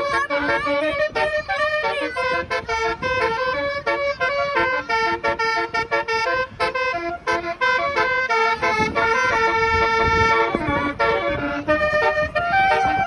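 Basuri musical vehicle horn playing a melody: a run of loud, piercing horn notes stepping quickly from pitch to pitch. Around two-thirds of the way through there is a low rumble under it.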